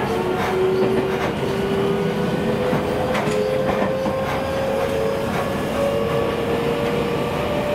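Seibu 9000 series train's Hitachi IGBT-VVVF traction inverter and motors whining under way, heard inside the car, the whine climbing slowly in pitch as the train gathers speed. A few wheel clicks over rail joints come through the running noise.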